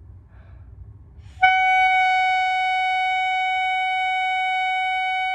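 A clarinet reed and mouthpiece sounding one steady, high, held note, starting abruptly about a second and a half in after a short breath, with a correctly placed embouchure.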